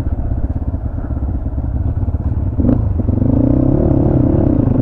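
A 250cc motorcycle engine running steadily on a rough off-road track. A sharp clatter comes about two and a half seconds in, and a wavering higher drone joins over the last two seconds.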